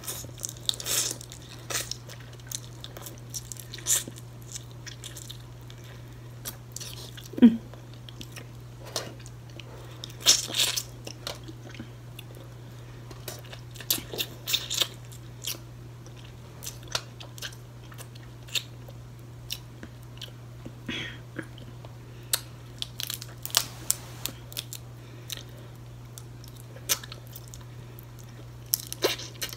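Close-miked mukbang eating of steamed blue crab: irregular wet chewing, lip smacks and small crunches and clicks as crab meat is picked from the shell and eaten. A steady low hum runs underneath.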